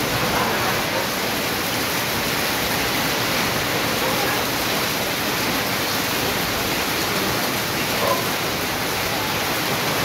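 Heavy rain pouring steadily onto a corrugated metal roof and the surrounding foliage, with water running off the roof edge: a dense, even hiss that does not let up.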